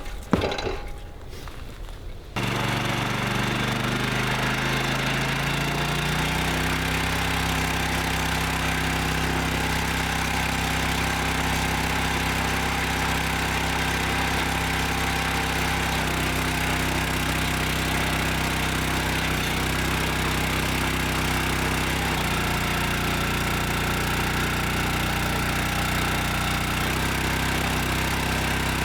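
A small gasoline engine on a 25-ton log splitter starts about two seconds in, climbs in speed for a few seconds, then runs steadily, with slight shifts in pitch later on. A brief clatter comes just before it starts.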